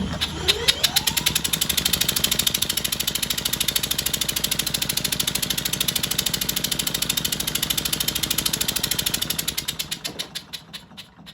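Single-cylinder Briggs & Stratton Model Y washing-machine engine being spun over by an electric drill, its broken kickstart bypassed. A whine rises as it spins up, then the engine chuffs in rapid, even pulses for about nine seconds. The pulses slow and die away near the end.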